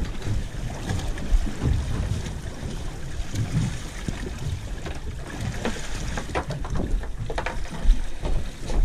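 Wind and water noise on an open boat, with wind buffeting the microphone in low irregular thumps. A few light clicks and taps in the second half as a hook is worked out of a small fish by hand.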